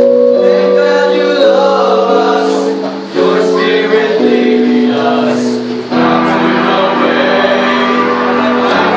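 Church choir of men and women singing a hymn in held, sustained chords, with short breaks between phrases about three and six seconds in.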